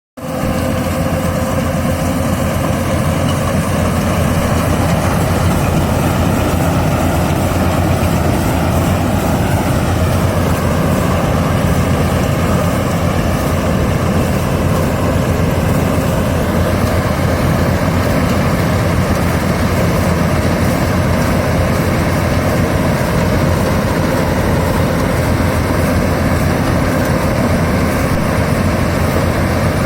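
Yanmar AW82GV combine harvester's diesel engine and machinery running steadily at a constant loud level while harvesting rice.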